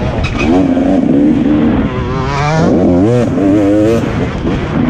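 Dirt bike engine revving up and down as the throttle is worked along a rough trail, its pitch rising and falling every second or so. The revs drop briefly about two seconds in, then climb again.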